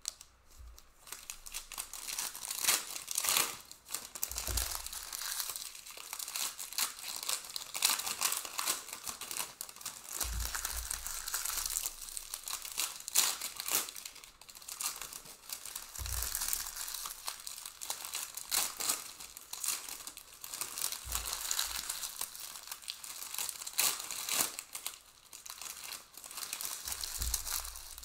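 Crinkly plastic-foil wrappers of trading card packs being torn open and crumpled, with the cards shuffled and handled. Dull thumps come every five or six seconds, as stacks are set down on the table.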